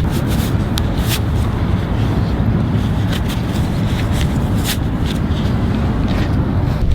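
A football being struck, heard as a handful of sharp, short knocks spaced irregularly over several seconds, over a steady low rumble.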